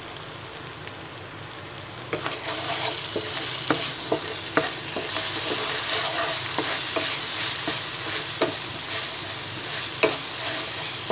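Wooden spatula stirring and scraping a sizzling spice paste of onion, ginger and garlic with sauces around a non-stick frying pan: the masala being fried. A quieter sizzle for the first two seconds, then repeated scraping strokes over a louder sizzle.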